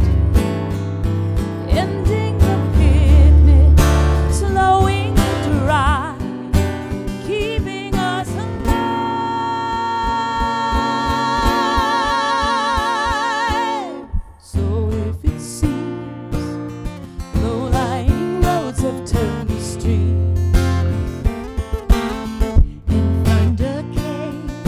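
A woman singing lead over an acoustic guitar, with a second woman singing harmony. Midway she holds one long note with a wide vibrato, then drops off briefly before the song goes on.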